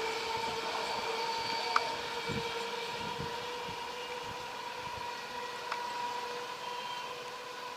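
A train running on the track and slowly fading away, with a steady tone and its overtones held throughout, and a few scattered clicks and low thumps from the wheels.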